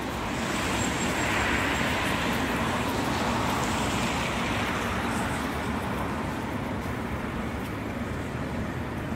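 Street traffic noise: a passing vehicle swells about a second in and fades slowly.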